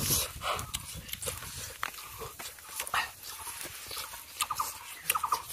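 Close-up eating sounds: chewing and wet mouth smacks of rice biryani, with light clicks and scrapes of coconut-shell spoons in shell bowls.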